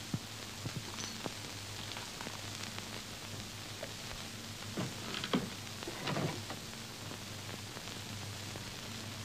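Hiss and crackle of an old film soundtrack over a steady low hum, with scattered clicks. Two short, louder, indistinct sounds come about five and six seconds in.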